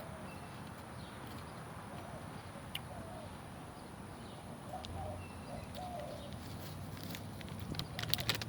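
Birds making short, repeated calls over steady outdoor background noise, with a few sharp clicks and a burst of crackling near the end.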